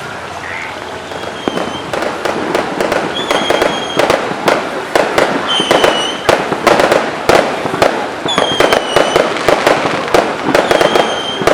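Fireworks going off in quick succession: a dense run of sharp bangs and crackling pops that thickens about a second and a half in, with a short high tone heard about every two seconds.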